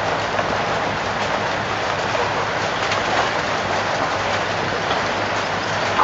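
Steady pattering of water, like rain falling, made of many small drops and splashes at an even level.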